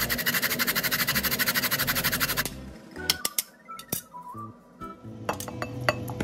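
Daikon radish rubbed back and forth on a plastic grater: quick, even rasping strokes, about eight a second, that stop about two and a half seconds in. A few light plastic clicks and clinks follow as the grater and its tray are handled.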